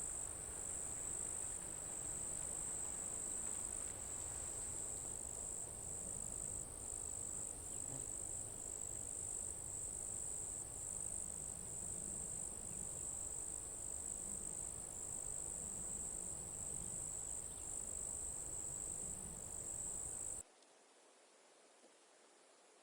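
Steady, high-pitched trilling of an insect chorus, with a faint low rumble beneath. It cuts off suddenly near the end, leaving near silence.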